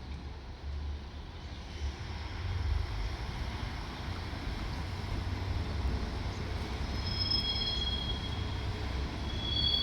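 JR Shikoku Type 1000 diesel railcars running past as an empty train, a steady low rumble of engines and wheels on the rails. Short high-pitched wheel squeals come in about seven seconds in and again near the end.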